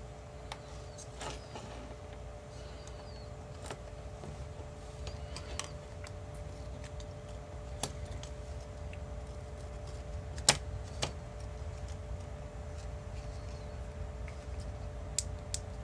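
Scattered small clicks and taps of plastic parts being handled as a TS100 soldering iron's circuit board and buttons are fitted into its plastic case shell, the sharpest about ten seconds in, over a steady low background hum.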